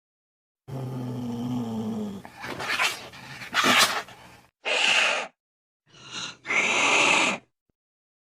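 Angry cat growling low for about a second and a half, then hissing in a run of sharp bursts, the last few short and separated by brief gaps.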